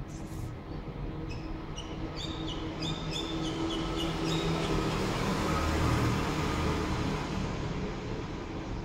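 A steady low background rumble that swells to a peak about six seconds in and then eases, with a run of short high chirps or squeaks in the first half.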